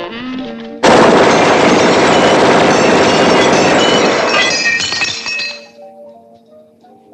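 A long, continuous burst of automatic submachine-gun fire with glass shattering, starting abruptly about a second in and lasting about four seconds before cutting off.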